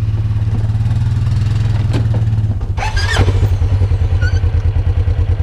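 Off-road vehicle engines idling: a steady hum, then a clack about three seconds in, after which the idle turns to a rapid, even putter.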